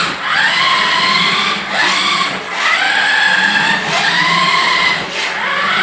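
Small electric motor of a remote-control toy car whining as the throttle is pressed again and again: each burst sweeps up in pitch and holds briefly, about five times in a row.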